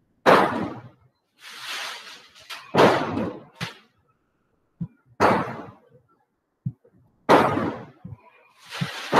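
A series of sharp bangs, about seven in nine seconds, irregularly spaced, each dying away within about half a second.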